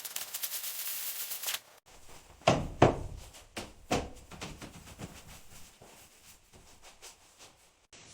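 A rapid clatter of clicks that stops about a second and a half in, followed by a handful of separate knocks with short tails, then faint room noise.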